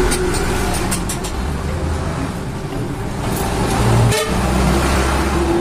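Passing road traffic: vehicle engines running by with a steady low rumble, and a horn toot.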